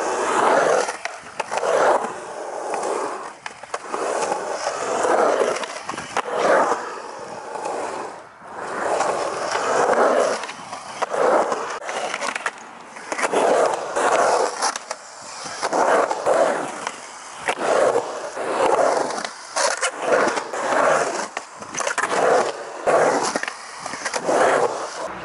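Skateboard wheels rolling on a concrete bowl, the rolling noise swelling and fading about every second and a half as the skater carves back and forth through the transitions, with a few sharp clacks of the board.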